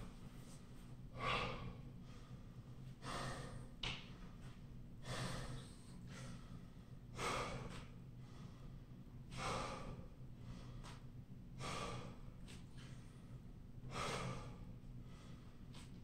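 A man breathing hard, with a deep breath about every two seconds, winded from high-intensity interval exercise.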